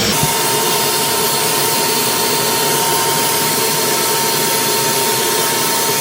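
Wet/dry shop vacuum running steadily with a constant whine, sucking up water draining out of the washer's drain-pump fitting.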